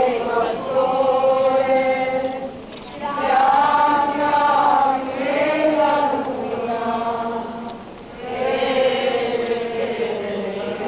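Voices singing a slow religious hymn together, in phrases of long held notes with short breaks between them.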